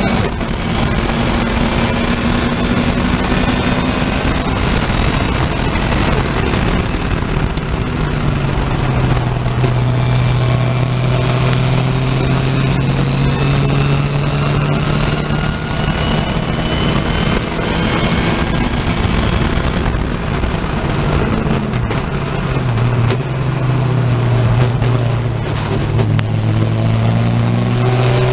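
Racing saloon car's engine heard from inside the cockpit at racing speed, its pitch climbing in gear and then breaking and dropping several times as the driver lifts and changes gear, over heavy wind and road noise.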